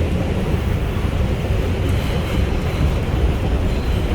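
R142 subway car running at speed on the express track, heard from on board: a steady rumble of wheels on rail and car motion, with no sudden events.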